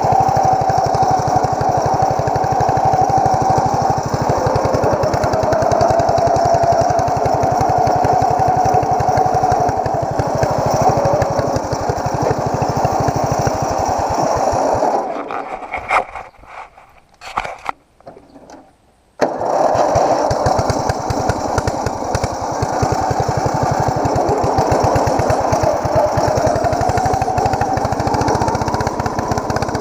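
Ariens YT11 lawn tractor's engine running under way, its pitch rising and falling as it is driven. About halfway through the engine sound drops away to a few faint knocks for about four seconds, then comes back suddenly.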